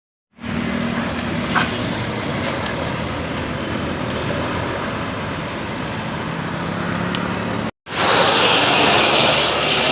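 Steady rush of a large bus's engine and road noise, with a faint low hum and no horn melody. Near the end there is a brief cut, after which the rush is louder.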